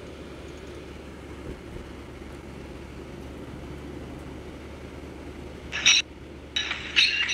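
Steady low rumble of a vehicle driving along, engine and road noise without change. Near the end, two short bursts of music cut in.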